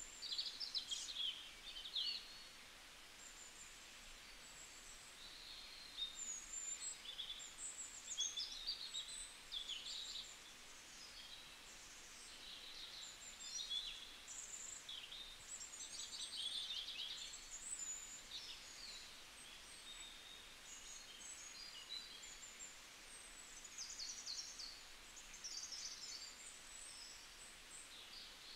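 A chorus of birds singing and chirping, many short overlapping calls and trills, over a faint steady hiss of outdoor background noise.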